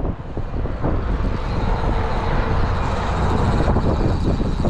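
A vehicle passing on the road: a steady rushing noise that swells through the middle and eases off near the end.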